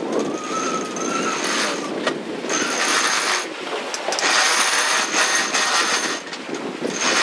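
Wind and rushing water aboard a sailing yacht under way, the hiss coming in surges a second or two long.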